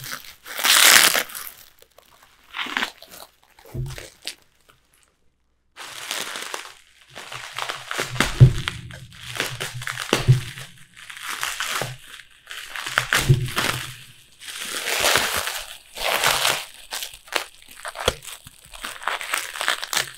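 Bubble wrap crinkling and rustling in irregular bursts as it is pulled off graded comic slabs, with a few dull thumps of the slabs being handled.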